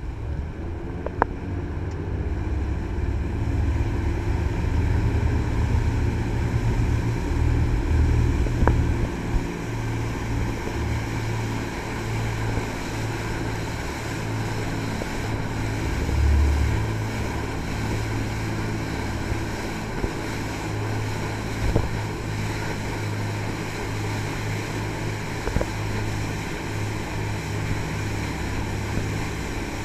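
Jet boat's three Cummins marine diesel engines, driving Hamilton jet pumps, running steadily underway with a deep drone over the rush of water and wind. The drone grows louder over the first few seconds, and a few brief sharp clicks stand out.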